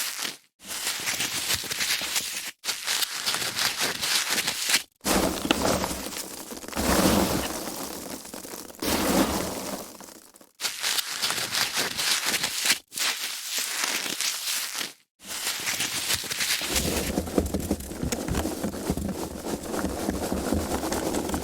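Foam packaging being handled and rubbed, crackling and crinkling continuously, with about six very brief silent gaps between stretches.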